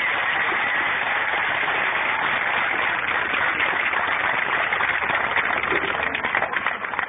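Crowd applauding in the stands, a dense wash of clapping with single claps standing out near the end.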